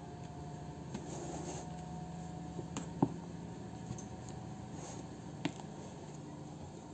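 Silicone spatula folding meringue in a stainless steel bowl: soft scraping and squelching of the foam, with a few short sharp knocks against the metal bowl, the loudest about three seconds in. A steady low hum runs underneath.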